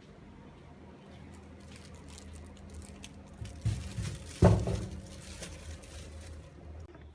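Plastic bag crinkling and rustling as it is handled, with a sharp knock about four and a half seconds in, over a steady low hum.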